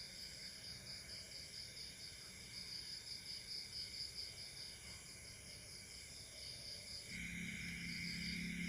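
Faint night insects. A cricket-like chirp pulses rapidly and evenly, and about seven seconds in a second steady buzzing drone starts up and becomes the loudest sound.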